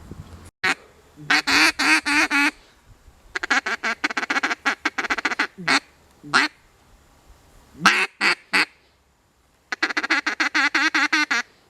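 Duck quacking in quick runs of short calls, several notes a second, with a few single quacks between the runs.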